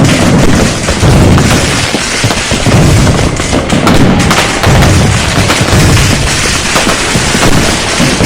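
Dense barrage of firecrackers and bangers going off: unbroken crackling with heavy booms about once a second.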